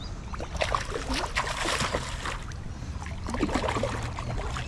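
Water sloshing and trickling against a kayak, with small irregular clicks and knocks in two bunches, over a low steady rumble.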